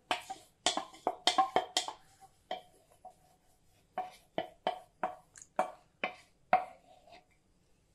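A utensil tapping repeatedly against a bowl to knock the last beaten egg out into the frying pan, each tap ringing briefly. There is a quick run of taps at first, then a steadier run of about three a second that stops near the end.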